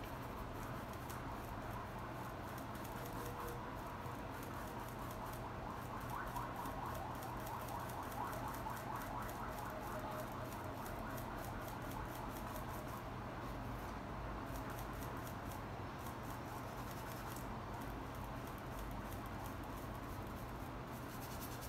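Paintbrush bristles scratching softly against the canvas in repeated short strokes, over a steady low hum.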